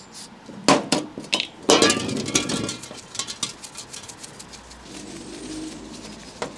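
Aerosol can of engine degreaser hissing in short sprays onto a motorcycle fork leg, the longest spray about two seconds in. Softer rubbing follows as the fork lower is wiped with kitchen roll, with a short knock near the end.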